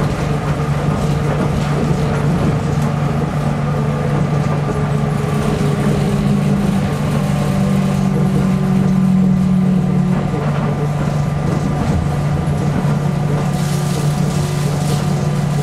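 A Nippori-Toneri Liner 300-series rubber-tyred automated guideway train running, heard from inside the car: a steady low hum with a whine of several steady tones on top. One tone grows louder for a few seconds midway, then settles.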